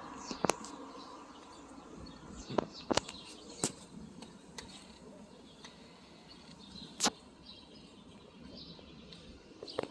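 Outdoor ambience: birds chirping over a steady background hum, with a few sharp clicks scattered through, the loudest about seven seconds in.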